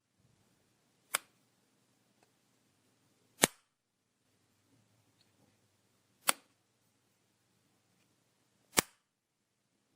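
Light switch flicked four times, each a single sharp click, about two to three seconds apart.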